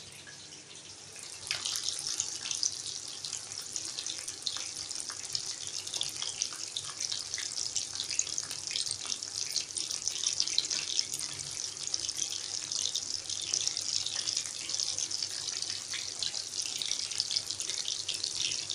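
Coated chicken drumsticks deep-frying in hot oil: a steady sizzling with many small crackles, which sets in about one and a half seconds in.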